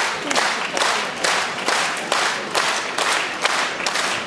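Concert audience applauding in unison, a steady rhythm of a little over two claps a second over a wash of general clapping.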